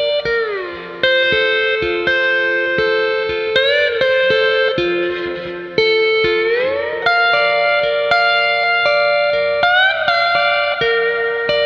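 Hawaiian-style guitar music: sustained chords on a steel guitar that slide smoothly down and up between pitches every second or two, over lightly plucked notes.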